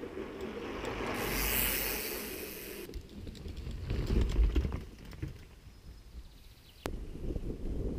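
A mountain bike rolling past close to a camera on the forest floor, its knobby tyres crackling over dry leaves and roots, with a few heavy thumps about four seconds in. A rushing hiss over the first few seconds stops suddenly.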